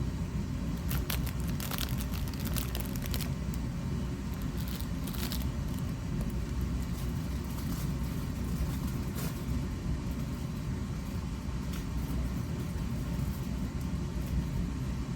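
Steady low rumble, with short bursts of crinkling from a plastic snack-cake wrapper being handled, most of it about one to three seconds in and again around five seconds.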